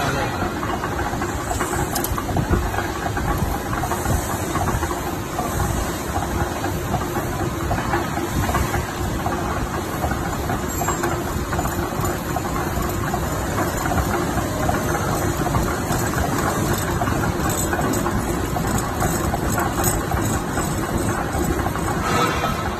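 Kitchen-shelf production machine running steadily: a continuous mechanical noise with a faint steady tone underneath.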